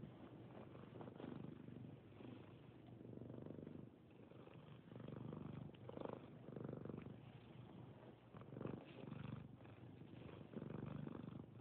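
Domestic tabby cat purring steadily and softly, the rumble swelling and fading with each breath about once a second: a content cat being cuddled.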